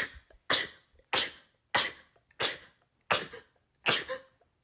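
A person sneezing rapid-fire in a long unbroken run, about seven sneezes in a row at a steady pace of one every half second or so. Each sneeze is a short sharp burst that dies away quickly, and the run slows slightly toward the end.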